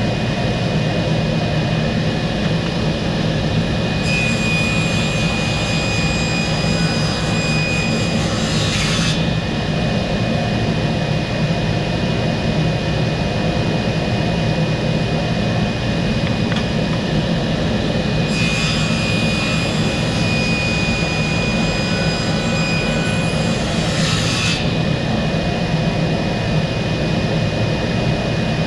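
A woodworking power tool running steadily on wood. Twice, for about five seconds each, a higher scraping layer joins in: first about four seconds in, then around eighteen seconds in.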